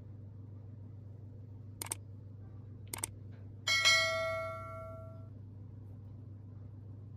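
Two short clicks about a second apart, then one loud bell-like ring that dies away over about a second and a half.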